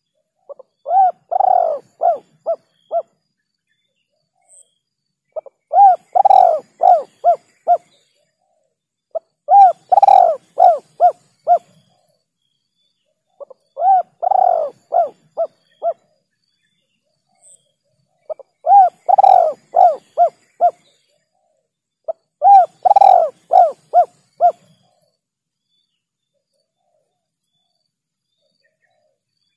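Spotted dove cooing: six phrases about four seconds apart, each a long rising-and-falling coo followed by a few quick shorter notes. A lure call used to attract wild spotted doves.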